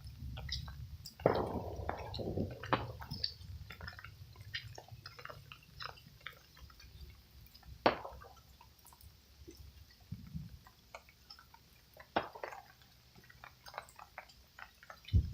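Distant fireworks going off: a few scattered bangs, one about a second in with a crackling tail, sharp single pops near the middle and later, among faint clicks and crackles.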